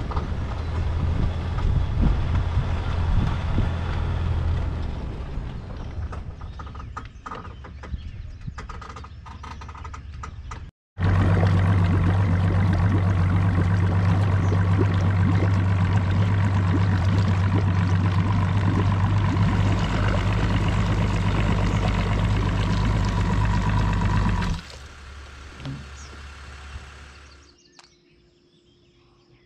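A vehicle engine running steadily at speed, in two stretches split by a sudden cut about 11 seconds in. The second stretch is louder and drops off abruptly a few seconds before the end.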